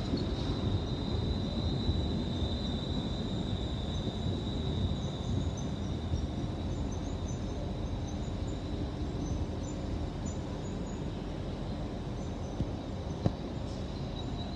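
London Midland Class 350 electric multiple unit moving along the platform, a steady rumble of wheels and running gear. A thin high steady whine sits over it and fades out about halfway through, and there is one sharp knock near the end.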